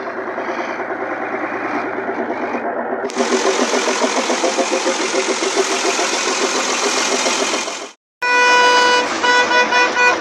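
Freshly rebuilt six-cylinder diesel bus engine, new piston rings and bearings fitted, running with an even clatter. About eight seconds in it stops briefly and the bus's horn sounds in a run of toots.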